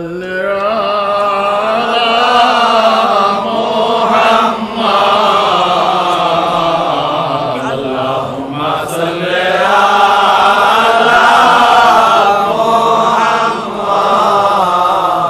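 Devotional milad chanting: a voice intoning praise in long, sustained melodic phrases, pausing briefly for breath about every four seconds.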